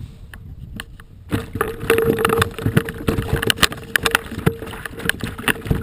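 Water slapping and gurgling against a sit-on-top kayak's hull close to the microphone, with many irregular knocks, growing louder about a second in. A steady hum runs under it.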